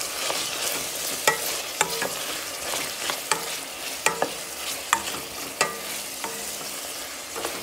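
Chopped onion, green pepper, garlic and bay leaves sizzling in corn oil in a stainless steel pot while a wooden spoon stirs them, knocking against the pot about every second with a short metallic ring. The onion is sautéing toward translucent.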